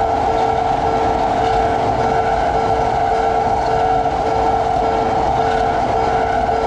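A train running past, with steady rolling rail noise, while a level-crossing warning alarm sounds a rapid, evenly pulsing tone.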